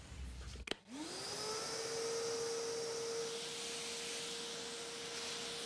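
Shop vacuum switched on with a click a little under a second in. Its motor spins up over about half a second to a steady whine over the rush of air through the hose.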